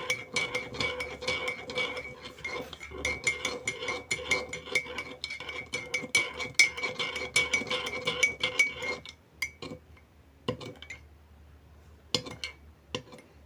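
A spoon stirring a butter, cocoa and sugar mixture in a tea mug, clinking rapidly against the sides with a faint ring from the mug. The stirring stops about nine seconds in, and a few single taps follow.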